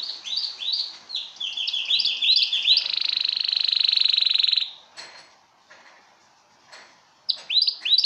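Male domestic canary singing: a run of quick, falling whistled notes that speeds up into a fast rolling trill lasting about two seconds. After a pause of a couple of seconds a new phrase of repeated falling notes starts near the end.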